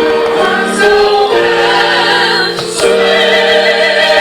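Choir singing long held chords, with the chord changing about a second in and again near three seconds in.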